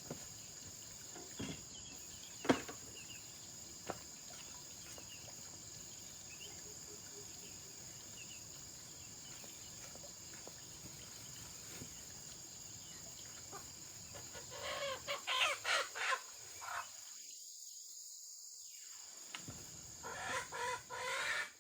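Faint bird calls over a quiet background with a steady high-pitched whine. A brief click comes a couple of seconds in, and the calls come in two louder bunches, about fifteen seconds in and again near the end.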